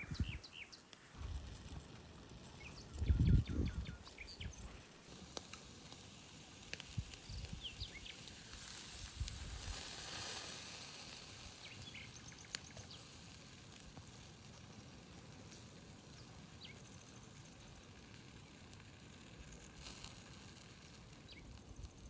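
Quiet outdoor ambience with occasional short bird chirps and a brief low thump about three seconds in. A soft hiss swells and fades around the middle.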